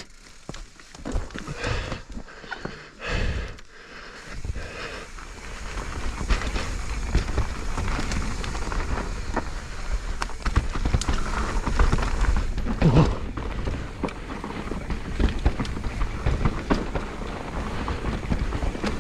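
Mountain bike running down a rooty trail: the tyres, chain and frame rattle and knock over roots. The rumble picks up about six seconds in and carries on with dense, irregular clicks, among them a clicking from the bike that the rider cannot trace.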